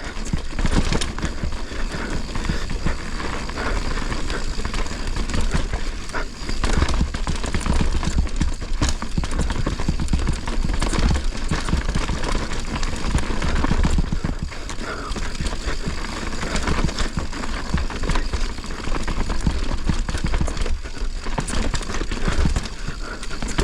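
Mountain bike descending a rough downhill trail at speed: tyres rattling over rocks and roots, with the chain and frame clattering in a fast, irregular stream of knocks over a constant low rumble.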